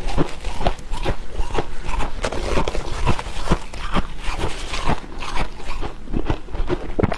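Dry freezer frost crunching and squeaking as gloved hands squeeze and pack it into a lump: a fast, irregular run of crisp crunches.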